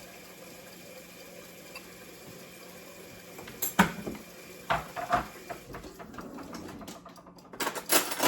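Kitchen handling sounds: a few separate knocks and clinks of containers and utensils from a few seconds in, then a quick cluster of them near the end, over a faint steady hum.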